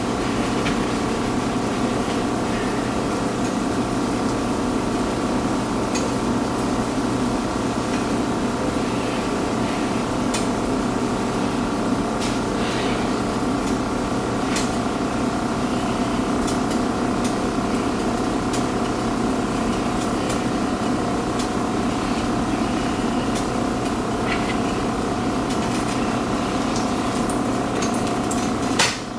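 A steady motor hum with several fixed tones runs throughout, scattered with small pops from a pancake frying in a nonstick pan. Near the end there is one short, louder knock as the pancake is flipped with a spatula.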